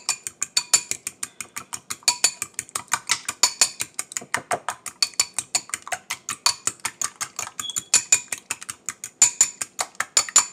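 A metal fork beating eggs in a glass bowl, its tines clinking against the glass in a rapid, even rhythm of about six or seven strikes a second, the glass ringing lightly.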